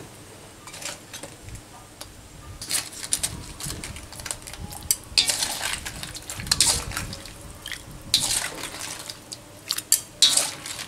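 Metal ladle scraping and clinking against a metal wok while scooping and pouring broth into a glass bowl, with liquid splashing. A handful of sharp scrapes are spread through, the loudest near the middle and near the end.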